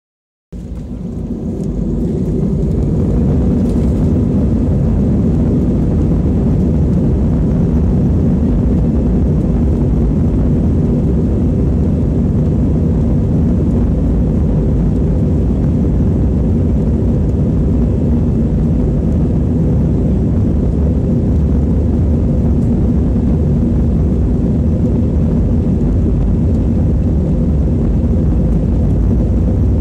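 Airbus A320 jet engines and runway rumble heard from inside the passenger cabin during the takeoff roll. The noise swells over the first couple of seconds, then holds as a steady, loud, low roar.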